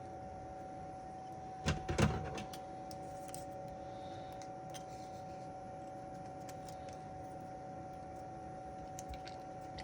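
Steady faint hum with a constant high tone from the repair bench. About two seconds in comes a short burst of rustling and small taps as the board's sensitive areas are masked off.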